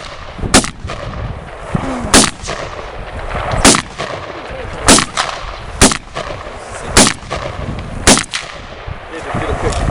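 Gun fired seven times in steady succession, roughly one shot every second or so, each shot sharp and loud with a brief echo.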